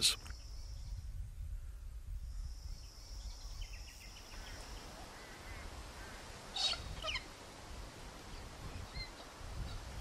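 Birds calling over a steady low rumble: a few faint calls, then a louder, harsh screech from galahs about two-thirds of the way in.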